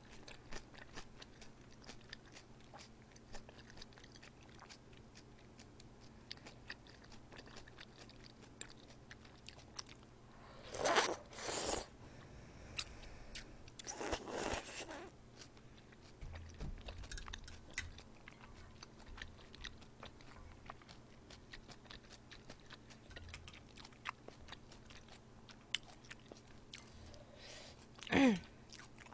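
Close-miked eating sounds: udon broth sipped from a spoon, with a few louder slurps around the middle, between soft chewing and small mouth clicks. Near the end, a short sound slides down in pitch.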